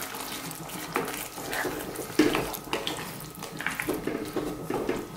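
A wooden spoon stirring a thick simmering beef curry in a nonstick pan, with wet slopping and squelching of the sauce. The spoon knocks against the pan a couple of times.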